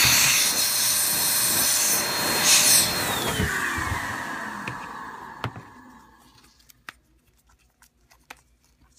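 Electric hot-air blower running with a steady rushing whine, then switched off about three seconds in, its fan winding down with a falling pitch and fading out over the next few seconds.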